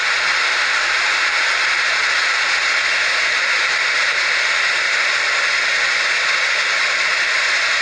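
Steady, even hissing noise with no breaks.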